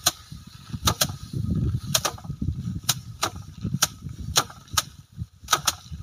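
Bundles of rice stalks being beaten by hand against slatted wooden threshing racks to knock the grain loose: sharp slaps on the wood about every half second to a second, some in quick pairs, over a low rumbling noise.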